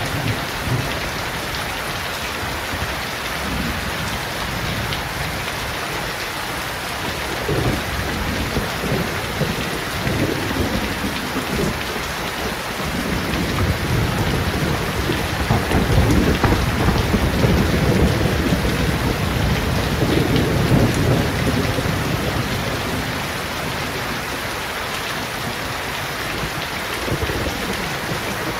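Steady rain falling on shrub leaves and a wet paved yard, a dense even hiss of drops. A low rumble swells up through the middle and eases off again.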